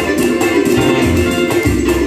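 Live samba band playing, with plucked strings, bass, drum kit and hand percussion keeping a steady beat.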